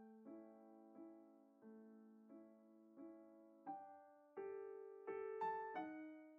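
Quiet background piano music. Single notes and chords are struck about every 0.7 seconds, each one fading away, with notes coming closer together a little past the middle.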